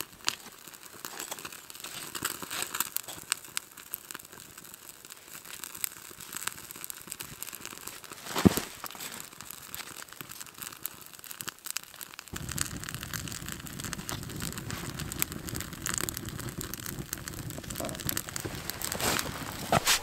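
Small fire of wood shavings and kindling crackling with irregular sharp pops, and one louder crack about eight seconds in. A steady low rumble comes in suddenly about twelve seconds in.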